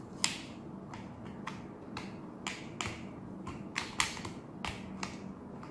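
Sharp plastic clicks and creaks, a dozen or so at irregular intervals, as a filter cartridge is pushed onto and twisted into the bayonet mount of a 3M 6200 half-face respirator.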